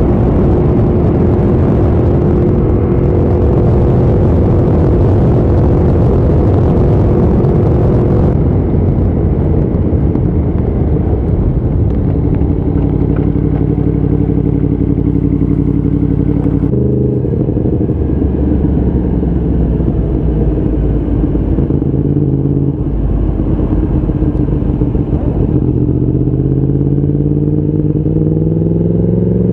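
Motorcycle engine running under way with wind rushing at first; the engine note holds at steady speeds, shifts, then climbs in pitch as it accelerates over the last few seconds.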